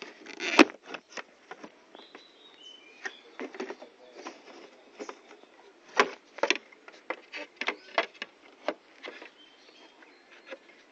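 Irregular clicks and knocks of hard plastic parts being handled on the front of a Yamaha Mio scooter, with its handlebar cover off. The loudest knock comes about half a second in and another about six seconds in.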